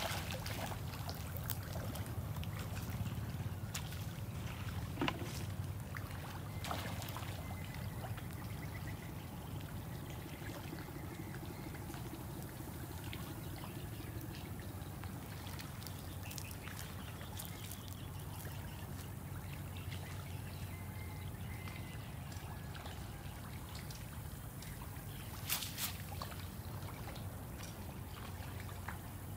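A cast net being hauled back through the water by its hand line and lifted out, with water trickling and pouring off the mesh and a few small splashes, over a steady low hum.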